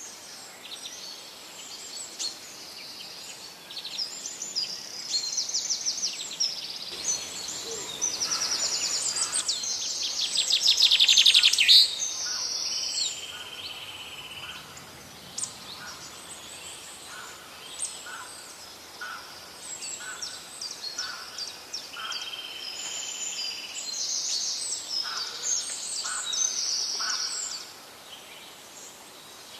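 Several songbirds singing and calling together in woodland, overlapping chirps, whistles and trills, the loudest a fast rapid trill about ten to twelve seconds in. In the second half one bird repeats a short note about once a second.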